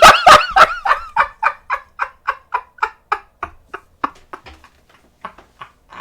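A person laughing hard: a long run of rapid, pitched 'ha' bursts, about four a second, that start loud and slowly grow fainter and further apart until they die out near the end.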